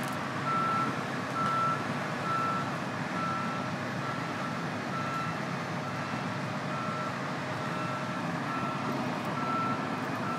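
A truck's reversing alarm beeping steadily, one single-pitched beep about once a second, over the low running of its engine.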